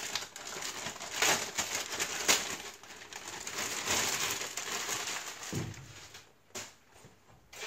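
Plastic packaging bag crinkling and rustling as a coiled TIG torch lead is pulled out of it, with sharper crackles every second or so. It quietens near the end, leaving a soft thump and a couple of light clicks.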